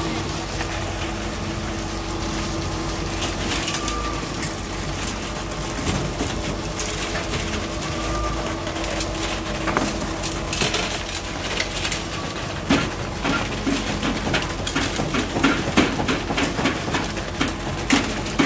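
Concrete pump and truck engine running steadily while concrete is pumped through the hose into column formwork, with a low pulse about every four seconds. A clatter of sharp knocks comes in the last few seconds.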